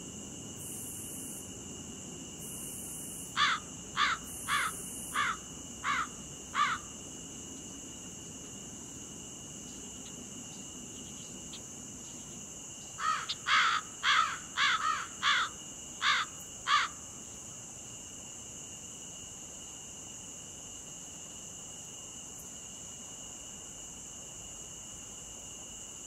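Insects, such as crickets or cicadas, keep up a steady high-pitched drone. Over it a bird gives two series of short, loud, repeated calls: about six, half a second apart, a few seconds in, then a quicker run of about nine just past the middle.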